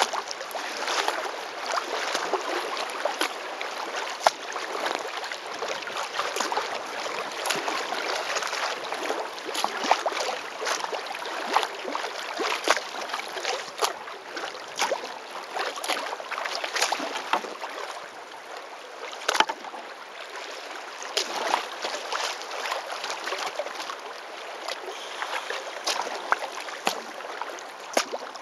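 Choppy river water splashing and slapping against the hull of a moving kayak: a steady wash of water with sharp splashes about every second.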